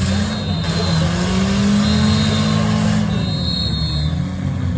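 Demolition derby car engines running and revving hard, several at once, over a constant rumble. The pitch swells up and falls back over a couple of seconds.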